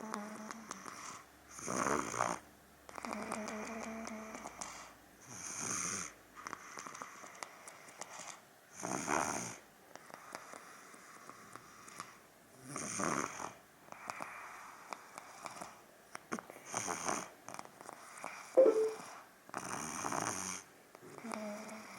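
A two-year-old toddler snoring in his sleep, one snore on each breath every two to four seconds. A short, sharp, louder sound cuts in about three-quarters of the way through.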